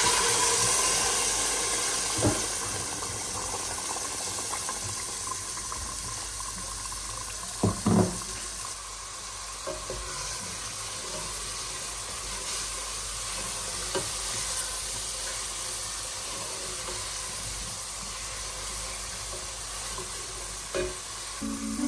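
Food sizzling in a hot cooking pot. The sizzle starts suddenly, then slowly dies down, with a few light knocks of a utensil.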